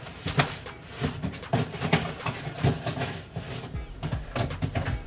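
Irregular knocks, thuds and rustling from someone rummaging through shoes and shoe boxes.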